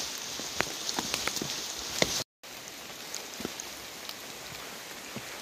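Rain falling, a steady hiss with irregular sharp drop ticks close by. The sound cuts out completely for a moment a little over two seconds in, then resumes a little quieter.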